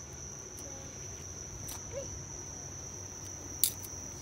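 Steady high-pitched chirring of insects in the background, with a few faint sharp clicks and one louder click about three and a half seconds in.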